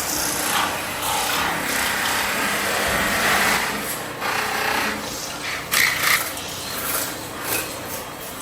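Tool noise of scraping and rubbing in uneven swells, with two sharp knocks about six seconds in.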